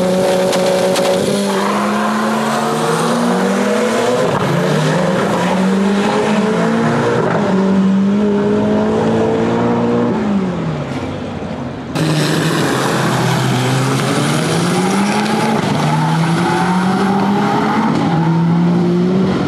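Drag cars' engines accelerating hard down the strip, the pitch climbing and dropping back with each gear change. About twelve seconds in the sound cuts to another run that again climbs through the gears.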